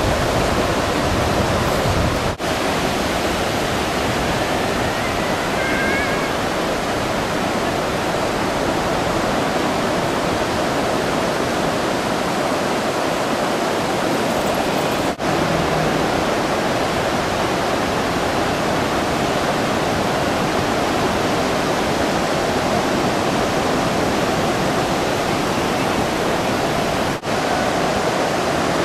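Surf breaking onto a beach: a steady wash of whitewater and waves, broken by three momentary dropouts.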